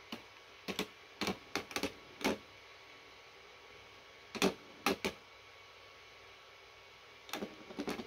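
3D-printed Beyblade tops clashing in the stadium, sharp plastic clacks in clusters: several in the first two seconds or so, a pair around the middle, and a quick flurry near the end.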